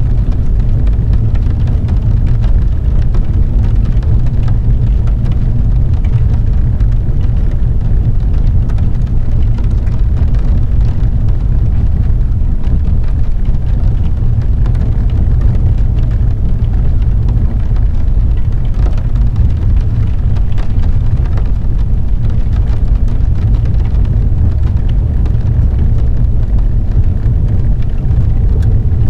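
Steady low rumble of a car driving on a wet road, heard from inside the cabin, with rain pattering on the windshield as scattered light ticks.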